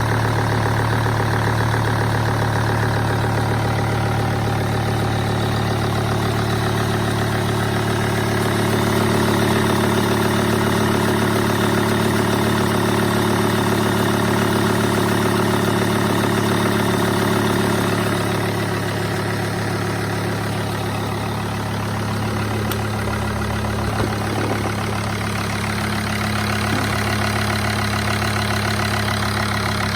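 Volvo XC90 2.4 five-cylinder diesel engine (185 hp) idling steadily, running harshly with a metallic knock, which the owner presents as a fault. The engine note eases slightly about eighteen seconds in.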